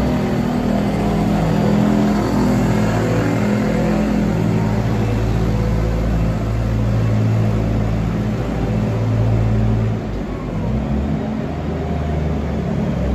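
Volvo wheel loader's diesel engine running as it pushes a manure scraper blade along the barn alley, its engine pitch shifting up and down a few times and easing off about ten seconds in.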